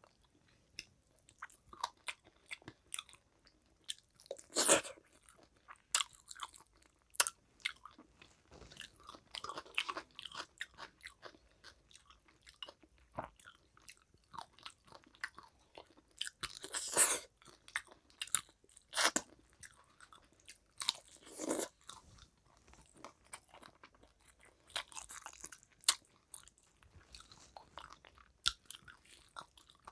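A person eating rice and fish curry by hand: chewing and wet mouth sounds with crunches, in irregular bursts, a few of them much louder.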